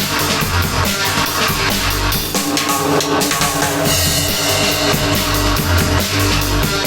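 Background music with a steady drum kit beat: bass drum, snare and cymbals.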